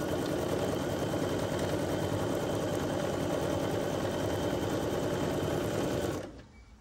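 Computerized domestic sewing machine stitching steadily through pieced quilt fabric, then stopping abruptly about six seconds in.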